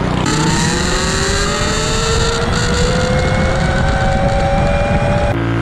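Minibike accelerating as it approaches, its motor's pitch rising smoothly and steadily for about five seconds before cutting off suddenly near the end.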